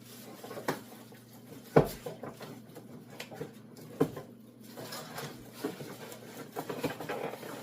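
Plastic juicer parts being unwrapped and handled: a plastic wrapper rustling, with several sharp knocks of hard plastic, the loudest about two seconds in.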